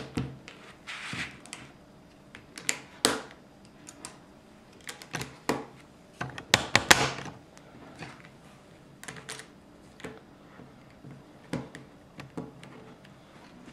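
Lego plastic pieces clicking and clattering as grey baseplates and light-grey edge pieces are handled and pressed together on a wooden table. Irregular sharp clicks come in small clusters, with a few brief scrapes.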